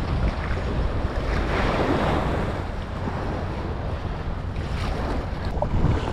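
Wind buffeting the microphone over small waves washing on a sandy shore in shallow seawater, a steady rushing with slow swells.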